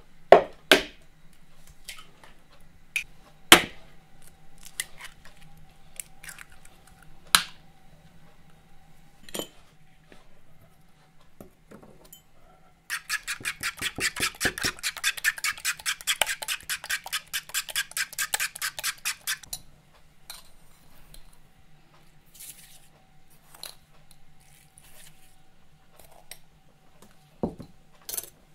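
A metal fork beating eggs in a plastic mixing bowl: quick, even clicking strokes for about six seconds from roughly the middle. Before that, a few sharp single knocks of eggs being cracked on a bowl's rim.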